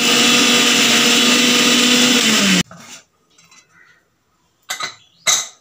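Electric mixer grinder (mixie) run in one short burst of about two and a half seconds to coarsely crush cumin, garlic, shallots and green chillies, then switched off, its motor pitch dropping as it spins down before it stops abruptly. Two sharp knocks follow near the end.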